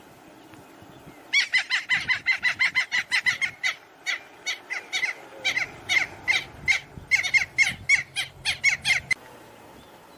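A bird calling in a rapid run of short, harsh notes, about four or five a second, starting about a second in and stopping about a second before the end.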